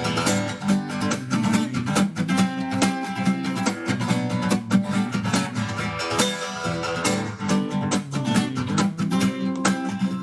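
Acoustic guitar strummed in a steady rhythm, chords ringing without a vocal.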